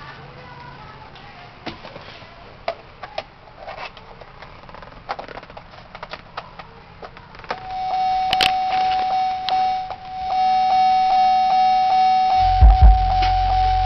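Scattered clicks and knocks, then a steady high electronic tone from about halfway through. Near the end, deep pulsing bass from a Chevrolet Tahoe's subwoofer comes in loudly.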